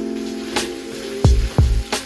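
Background music with a steady beat: deep kick-drum thumps and crisp snare or hi-hat hits over held chords.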